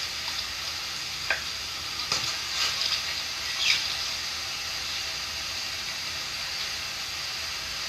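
Steady hiss with a few short, soft water splashes in the first few seconds, as from canoe paddles dipping into the river.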